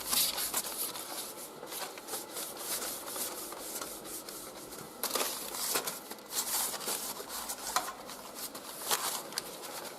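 Damp crumpled newspaper with ash rubbed back and forth over a stove's glass door, a repeated gritty wiping that scrubs the soot off.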